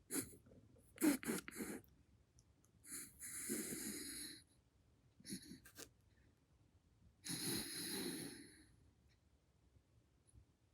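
Pet raccoon snoring in its sleep: two drawn-out breaths about four seconds apart, each after a few short clicking sounds.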